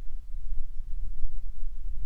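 Wind buffeting the microphone: a low, fluttering rumble, with no gunshot.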